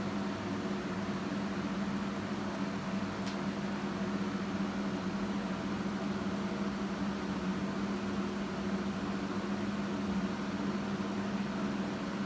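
Steady mechanical hum with a constant low tone, and one faint click about three seconds in.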